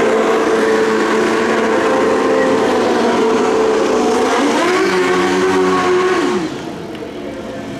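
Pro Street drag motorcycle engine held at high revs during a burnout, its rear tire spinning in smoke. The revs climb to a higher held note about four and a half seconds in, then the sound drops away sharply about six and a half seconds in.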